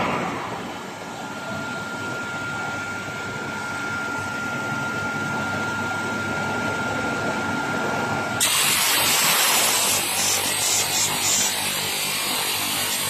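Spiral duct forming machine running with a steady mechanical noise and a thin high whine; about eight seconds in, the whine stops and a loud, hissing machine noise sets in abruptly.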